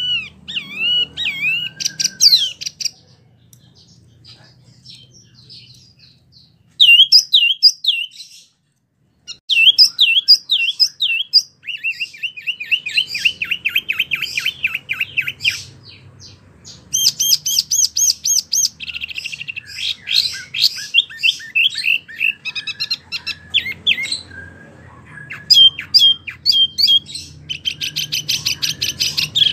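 Wambie mini songbird singing loud, fast runs of repeated whistled notes and rapid trills, high-pitched, with a few short pauses between bursts.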